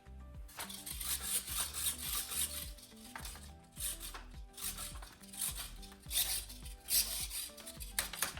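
Background music with steady low notes, overlaid by repeated scratchy rubbing or scraping noise that comes and goes every second or so.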